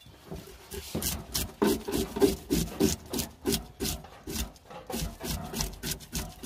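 Metal fish scaler scraping the scales off a large northern pike on a stainless steel sink drainboard, in quick repeated strokes of several a second.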